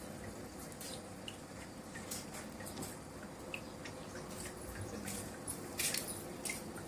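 Old engine oil faintly dripping and trickling out of the car, with a few small clicks and knocks.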